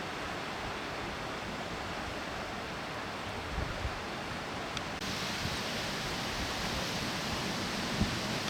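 Fast-flowing floodwater of a swollen river rushing past in a steady noise, a little louder about five seconds in.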